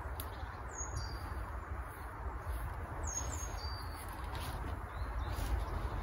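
A small bird calling twice, each time a quick run of short high chirps that drop in pitch, over a steady low rumble.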